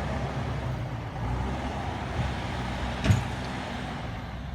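JCB backhoe loader's diesel engine running steadily, with one sharp clank about three seconds in.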